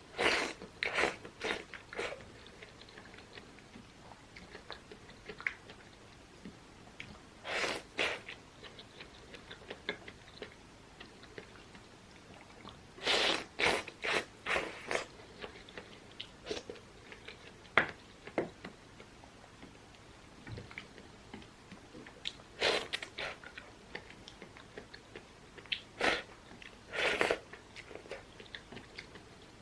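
A person chewing and biting food close to the microphone, with wet mouth smacks and crunches coming in short clusters every few seconds and quiet gaps between them.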